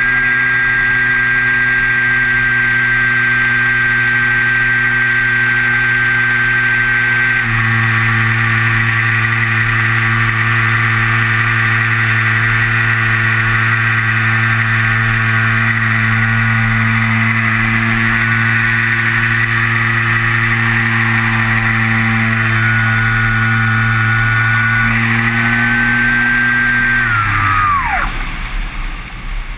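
Electric motor and spinning propeller of a Kyosho Stratus 2000 RC glider running under power with a steady high whine, heard from the nose-mounted camera; the tone shifts once about a quarter of the way in. Near the end the motor is cut and spins down with a steeply falling pitch as the folding propeller stops.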